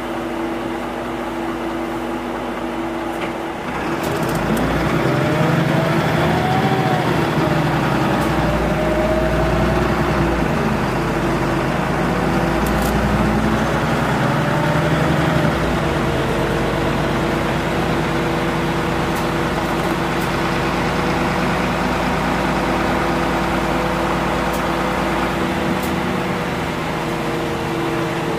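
Mitsubishi Fuso QKG-MP38FK city bus's inline-six turbo diesel (6M60) running: a steady idle hum at first, then about four seconds in it gets louder as the bus pulls away, its note rising and falling. Later it settles into a long steady note that slowly drops near the end.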